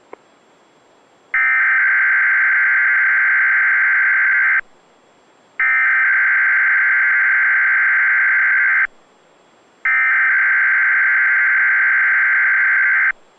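Three bursts of weather-radio SAME digital header tones, a harsh modem-like warble. Each burst lasts about three seconds, with about a second between them. The header is the data that activates alert-equipped weather radios, here ahead of a weekly test message.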